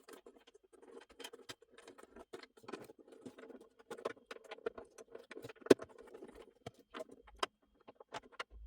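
Small clicks, taps and rattles of 3D-printed plastic parts and small screws being handled and fitted together, with one sharper click about two-thirds of the way in.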